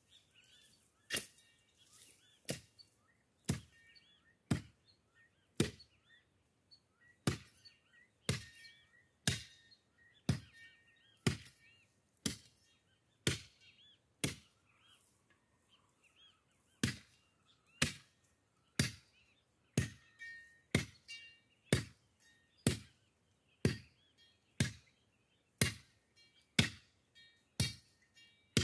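Machete chopping through brush and small branches, strikes coming about once a second in a steady rhythm. Birds chirp between the strokes.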